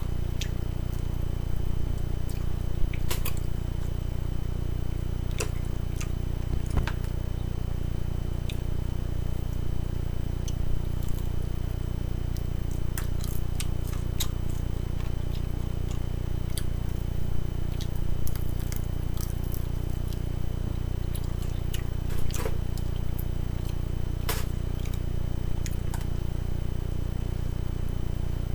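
Eating sounds: scattered sharp clicks and crackles and soft wet chewing as spinach and tofu salad is eaten from a clear plastic container, over a steady low hum.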